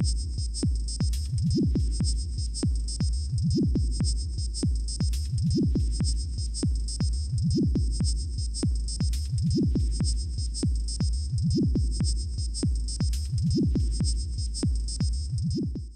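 Electronic outro music: a steady deep bass drone with a rising synth sweep about every two seconds, a quick ticking beat, and a high shimmering tone held throughout.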